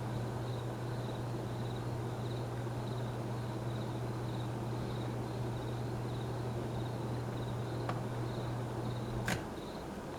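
Hampton Bay Gazebo II ceiling fan's motor humming steadily; about nine seconds in a click is heard and the hum stops. A faint high-pitched chirp repeats several times a second throughout.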